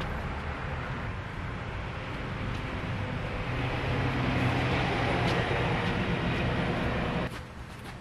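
A motor vehicle's engine and road noise, growing louder over several seconds, then dropping away abruptly about seven seconds in.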